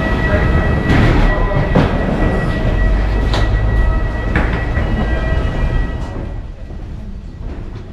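Low rumble and clatter of footsteps and carry-on bags on a metal jet bridge floor, under a steady high-pitched whine. The rumble drops off about six seconds in.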